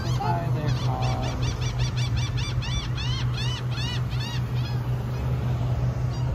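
A bird calling in a rapid run of repeated honking notes, about four a second, that stops about three-quarters of the way through, over a steady low hum.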